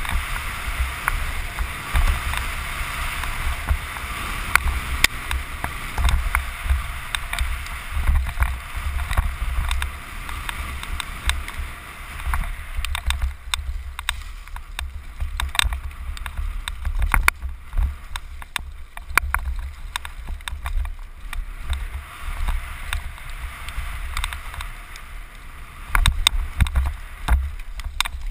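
Wind buffeting the microphone on a fast downhill mountain-bike descent, with tyres hissing over dry dirt and frequent clattering knocks from the bike over bumps. The tyre hiss is strongest in the first dozen seconds; the knocks come thicker near the end.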